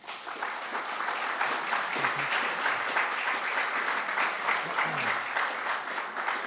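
Audience applauding, a dense steady clatter of many hands clapping that breaks out suddenly at the start.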